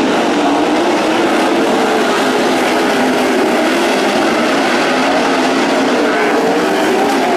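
Sprint car V8 engines running at racing speed, their pitch rising and falling continuously as the cars work around the track.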